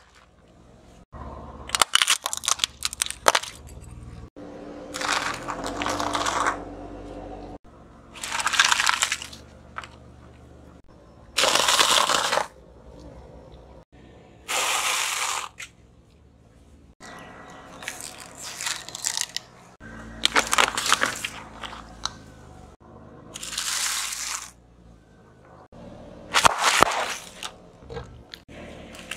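A series of crunching, crackling crushes as a car tyre rolls over dry, brittle food: dry fusilli pasta in a foil tray and dry noodle nests. They come roughly every three seconds, each lasting about a second.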